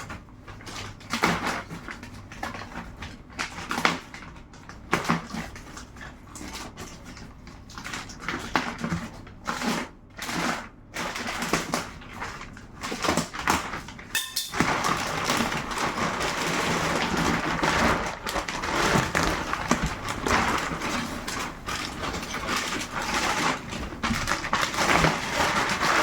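Plastic packaging of a boxed bed being handled and pulled off: scattered rustles and knocks, then continuous crinkling of plastic wrap from about halfway through.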